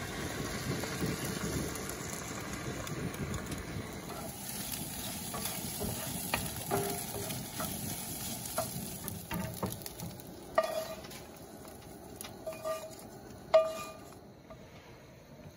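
Scrambled eggs sizzling in a cast iron skillet while a wooden spoon stirs and scrapes them; the sizzle fades after a few seconds. A few sharp knocks of the spoon and skillet follow as the eggs are served onto plates, the loudest near the end.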